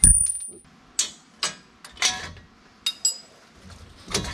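Metal parts clanking and scraping as the old front wheel hub assembly and brake dust shield are worked off the steering knuckle and axle shaft. There is a sharp ringing clink at the start, then several knocks and scrapes, a small metallic click with a short ring about three seconds in, and another loud clank near the end.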